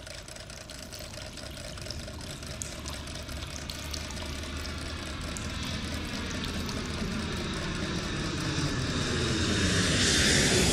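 Steady rush of distant city traffic, with a slowly sweeping, phasing tone, growing gradually louder toward the end.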